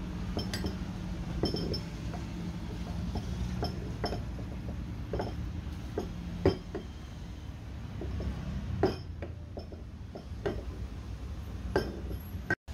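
Small metal parts and hand tools clinking and knocking at irregular intervals, about a dozen light strikes with a few louder ones, over a steady low hum.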